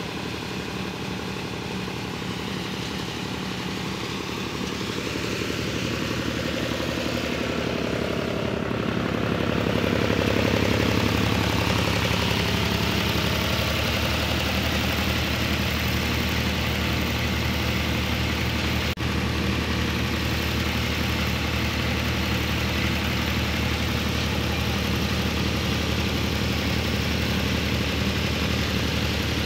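Engine of a small 480-model tractor driving a wheat thresher through its PTO shaft. The engine speeds up over several seconds, then runs steadily under the threshing load, with the rush of the thresher's drum and blower.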